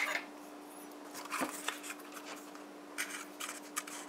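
Soft scattered rustling and scraping as hands and a metal spoon work in flour and scoop baking powder from a plastic bag, after a sharp click at the start. A faint steady hum runs underneath.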